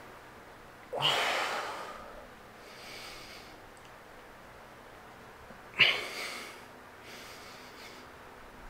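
A person breathing heavily: two loud, sudden exhales about five seconds apart, each fading over about a second, with quieter breaths in between.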